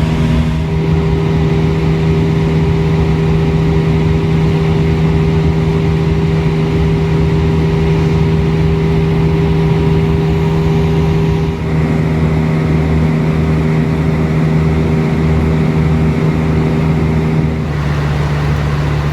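Airbus A320 cabin noise in flight: a steady, loud drone of engine and airflow with a low hum running through it, its pitch shifting slightly a couple of times.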